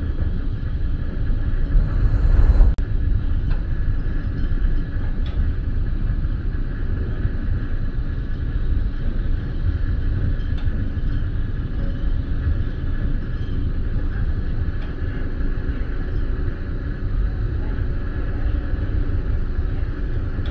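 Steady low rumble on board the MV Armorique car ferry under way, from its engines and the wind over the deck, with a brief louder rush of wind about two seconds in.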